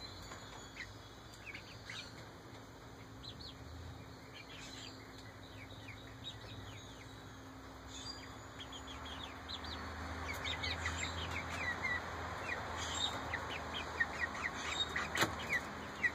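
Young Ameraucana chickens, about eight weeks old, peeping and chirping: scattered short high calls that come thicker and louder in the second half. Under them is a background hiss that also grows, and a single sharp click near the end.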